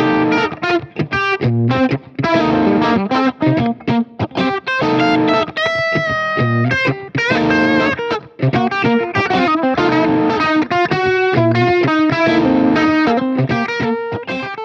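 Electric guitar playing a funky blues phrase in C that mixes major and minor pentatonic notes. It moves in short, choppy notes and chords with a few held chords, and fades out near the end.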